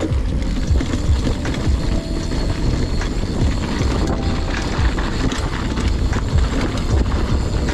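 Mountain bike rattling and bumping over a rough trail at speed: a dense, uneven rumble of tyres and frame with frequent small knocks.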